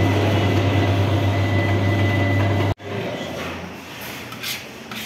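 Electric bakery dough mixer running, a steady low motor hum as the bowl turns through flour. About three seconds in the hum cuts off abruptly, leaving a quieter rumble with a few light clicks.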